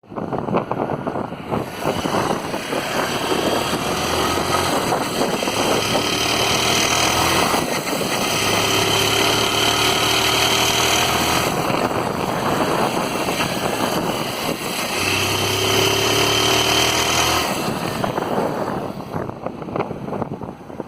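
Honda Titan 160's air-cooled single-cylinder engine running and revved up and held three times, dropping back toward idle near the end. It carries the abnormal internal engine noise that the owner heard after a valve adjustment, which was finally traced to the crankshaft and bearings.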